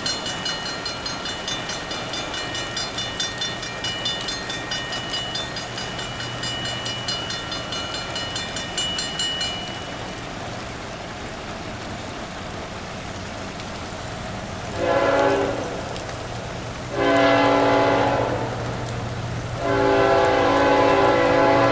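A railroad crossing bell rings in rapid, even strokes for the first ten seconds, over steady rain. Then a Canadian National freight locomotive's air horn sounds for the crossing: a blast of about a second, a longer one of about two seconds, and a third long blast still sounding at the end.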